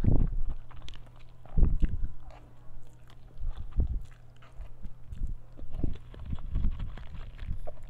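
Close-miked eating of instant noodles: a mouthful slurped in and chewed, with wet mouth noises coming in irregular bursts about once a second, loudest near the start and again around two seconds in. A steady low hum runs underneath.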